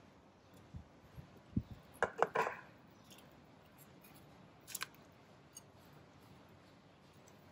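Chunks of jicama being dropped into water in a pressure cooker's inner pot: a couple of faint low plops, then a quick cluster of sharp clicks about two seconds in and another pair near five seconds.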